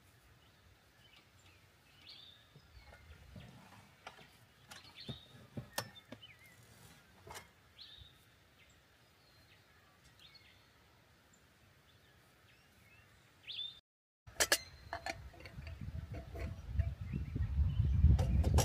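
Small birds chirping in short calls, with a few sharp clicks, over quiet open-air ambience. After a short dropout about fourteen seconds in, a low rumbling noise comes in and grows louder toward the end.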